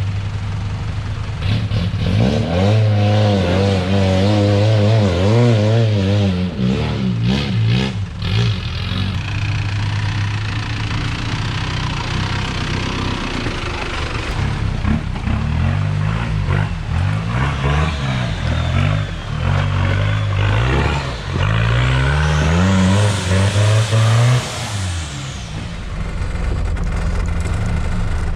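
A 4x4 truck's engine driving off-road: it idles, then revs up and down again and again as the throttle is worked, and settles back to idle near the end.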